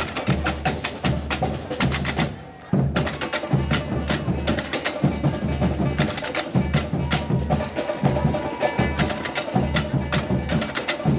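A samba bateria playing a batucada groove: deep bass-drum pulses under dense, fast snare and high clicking percussion. The whole ensemble stops dead about two seconds in and crashes back in half a second later.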